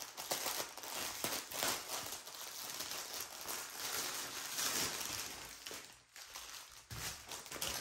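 Plastic wrap crinkling and crackling as hands unwrap a bundle of diamond-painting drill bags, with a brief lull about six seconds in.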